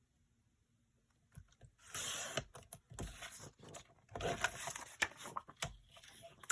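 Paper being handled on a craft table: short rustling, sliding sounds in a few spurts with light clicks and taps, starting about a second and a half in.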